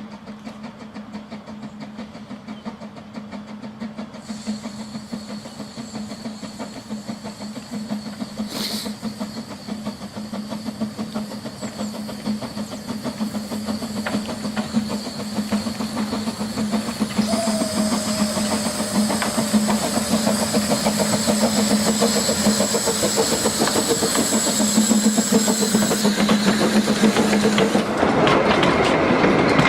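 Quarry Hunslet steam locomotive and its narrow-gauge train approaching, running steadily louder with wheel clatter and steam hiss. From about four seconds in, a high steady squeal runs over it.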